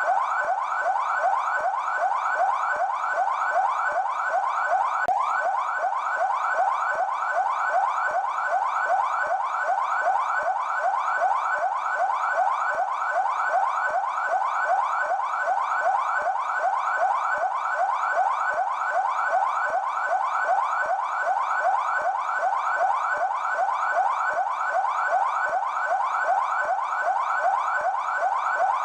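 São Paulo Military Police (PMESP) siren sounding in yelp mode: a fast, unbroken series of rising sweeps, about three or four a second, holding steady throughout.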